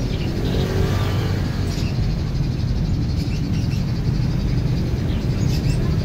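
Steady low rumble of nearby vehicle traffic, with a few brief high bird chirps about two seconds in and again near the end.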